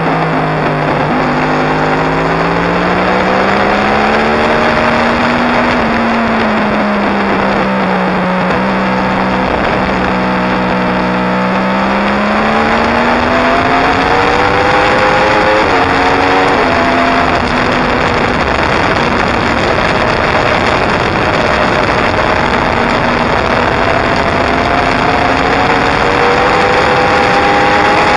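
2016 Yamaha R1's crossplane inline-four engine running at track speed, its pitch sliding down and up with the throttle through a series of corners, with a sudden drop about two-thirds through. Heavy wind rush over the exposed camera runs under it.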